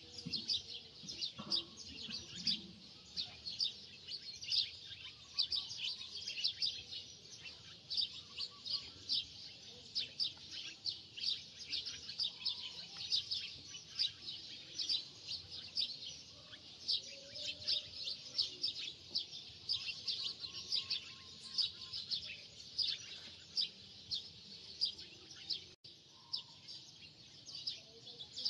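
Many small birds chirping continuously, several high-pitched chirps a second overlapping throughout.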